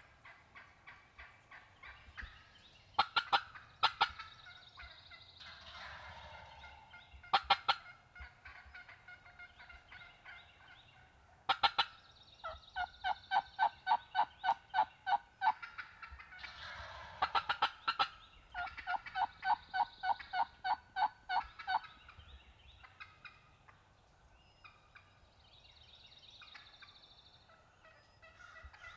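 Wild turkeys calling: longbeard gobblers gobbling hard, with several loud gobbles a few seconds apart, and two long runs of rapid, evenly spaced turkey yelps, about four a second.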